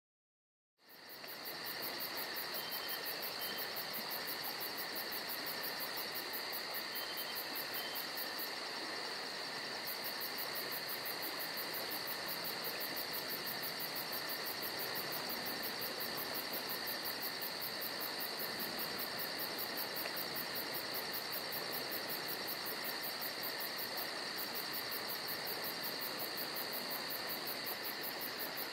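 Steady chorus of insects, several shrill trills at different pitches held without a break, with a very high, rapid pulsing above them; it starts abruptly about a second in.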